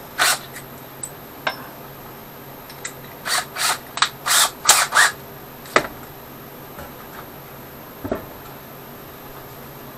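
Keyless chuck of a DeWalt cordless drill being twisted by hand to change the bit: a short rasp at the start, then a run of about five quick grinding rasps a few seconds in, and a sharp click. Later comes a single knock.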